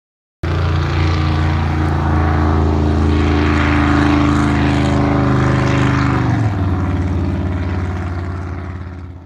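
Speedboat engine running at high speed, a steady drone whose pitch drops about six and a half seconds in, then fades away near the end.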